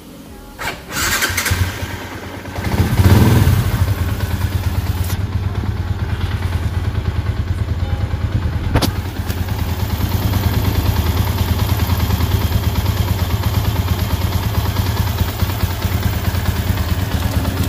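Yamaha Sniper 150's single-cylinder engine started up: it catches about three seconds in with a brief rev, then settles into a steady idle. This is its test run after a water pump rebuild (new seals, impeller and gasket) that cured coolant mixing into the oil.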